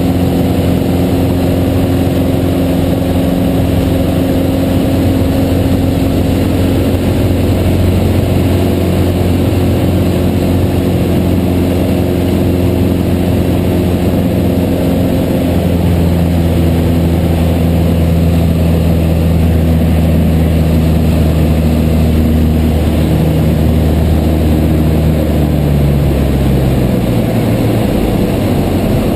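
Cessna 150's Continental O-200 four-cylinder engine and propeller droning steadily inside the cabin. Over the last few seconds the pitch steps down as power is reduced for the approach to the airstrip.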